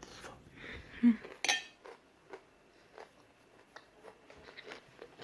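An eating utensil against the dish: a dull knock about a second in, then a single bright, ringing clink, followed by scattered faint clicks.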